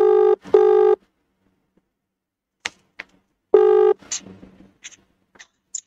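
Telephone ringback tone: a double ring of a buzzing tone, then about three seconds later one more ring that stops short. Faint clicks and rustles fall between the rings.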